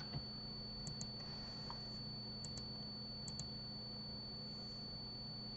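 Faint clicks of a computer mouse: three pairs of short clicks, each pair about a tenth of a second apart, over a steady low electrical hum and a thin high whine.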